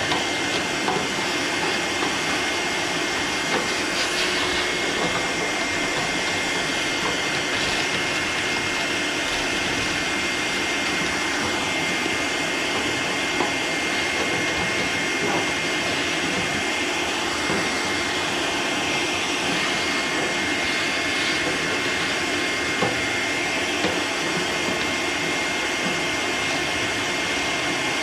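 Shop vacuum running steadily with a thin high whine, its hose sucking dust and leftover pellets out of a pellet grill's hopper. A few sharp ticks come through the hose.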